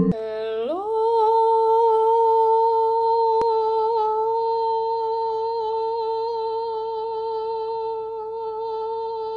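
A voice humming one long held note: it slides up about an octave in the first second, then holds steady with a slight wobble for the rest of the time.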